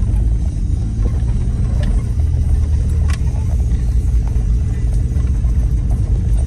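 GMC Yukon driving over a rough, muddy off-road trail, heard from inside the cabin: a steady low rumble of engine and tyres, with two short sharp knocks about two and three seconds in.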